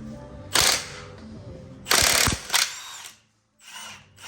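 An impact wrench spins wheel lug nuts loose in several short bursts, the longest about half a second.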